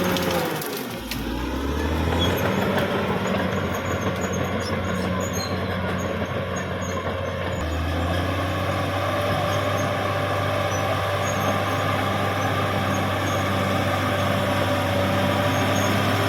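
Caterpillar D6R XL bulldozer's diesel engine running under load. Its revs dip about a second in, then climb back to a steady working note.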